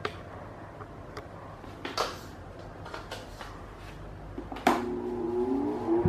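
A few sharp clicks as the freshly reassembled Mondial VTX-40 Super Turbo 40 cm pedestal fan is plugged in and switched on. About three-quarters of the way in, its motor starts with a hum that rises in pitch as the blade spins up, a test run to check that it works.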